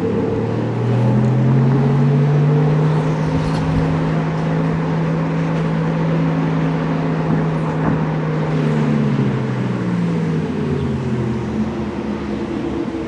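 Porsche Taycan's exterior sound speaker playing its synthetic low engine rumble: a hum of several stacked tones that climbs in pitch at the start, holds steady, then drops back down near the end, following the car's driving state.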